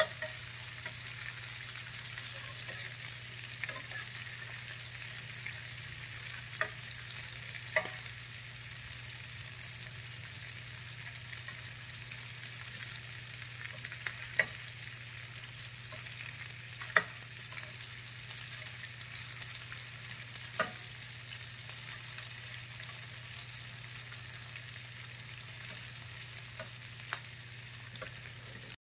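Chicken wings sizzling steadily in oil in a nonstick frying pan, with a sharp click or scrape every few seconds as a slotted spatula turns them against the pan. A low steady hum runs underneath.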